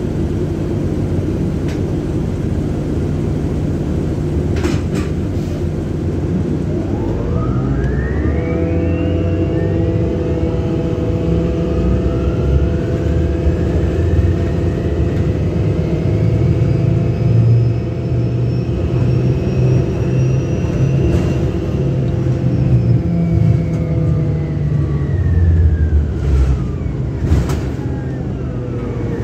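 2009 Orion VII NG hybrid bus with BAE HybriDrive heard from on board: the Cummins ISB diesel drones low while the electric traction motor's whine climbs in pitch about seven seconds in as the bus gathers speed, holds steady while it cruises, then sinks in pitch near the end as the bus slows.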